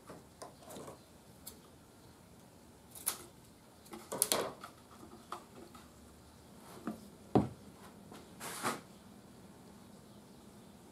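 Scattered clicks, knocks and a short scrape of tools and parts being handled on a workbench. A cluster of clicks comes about four seconds in, and the sharpest knock a little past seven seconds.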